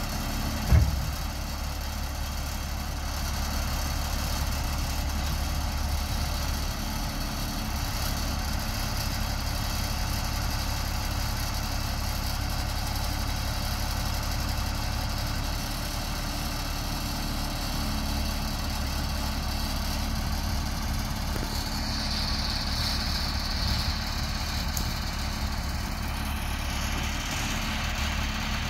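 GMC bucket truck's engine idling steadily while it drives the hydraulic boom that raises the bucket. A single sharp knock sounds about a second in.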